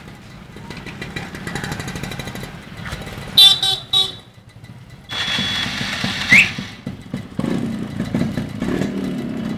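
Motorcycle engines running close by. A passing motorcycle gives three short horn beeps about three and a half seconds in. About seven and a half seconds in, a louder engine sound starts suddenly.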